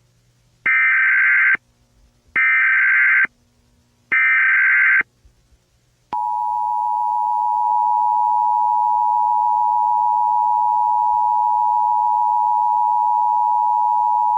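Emergency Alert System tones: three short bursts of SAME header data, each about a second long, then the steady two-tone EAS attention signal (853 and 960 Hz) starting about six seconds in.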